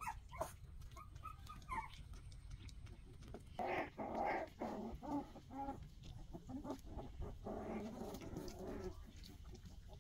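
Young puppies whimpering and yipping, with short calls in the first couple of seconds and a longer run of whining from about three and a half to nine seconds in.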